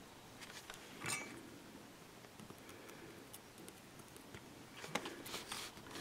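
Faint clicks and scrapes of fingers handling a small plastic JST-PH connector at the end of a tiny lipo battery, with one sharper click about a second in and a run of clicks near the end.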